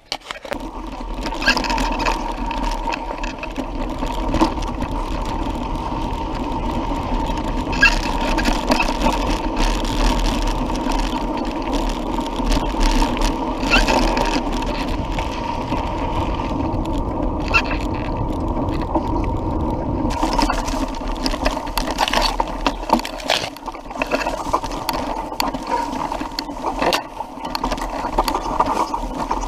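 Mountain bike riding over a dry dirt trail, heard from a camera on the bike: a steady rumble of tyres and wind on the microphone, with frequent sharp knocks and rattles as the bike goes over bumps.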